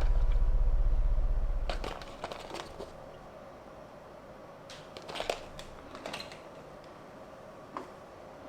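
Background music that ends about two seconds in, followed by scattered light clicks and rustles of handling small objects, the sharpest a little past halfway.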